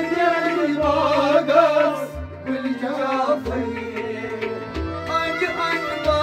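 Live Kashmiri Sufi song: a man singing ornamented, wavering melodic lines over sustained harmonium tones, with low hand-drum strokes keeping the beat.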